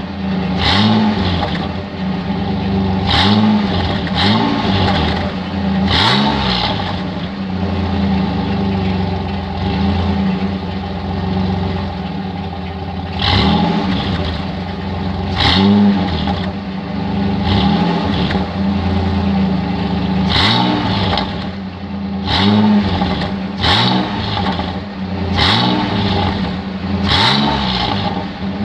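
Dodge Dakota's 3.9-litre V6 running through an exhaust with a single tailpipe, idling steadily between short throttle blips that rev it up and let it fall back, about ten times in all, with a longer stretch of plain idle in the middle.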